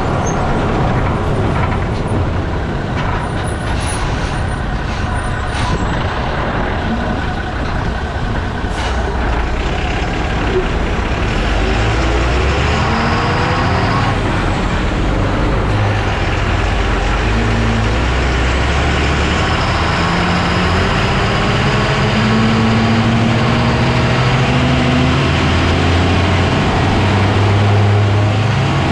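Lorry driving, heard from a camera mounted under its chassis: heavy road and running-gear noise with the engine underneath, and a few sharp clicks in the first few seconds. In the second half the engine note climbs in pitch more than once.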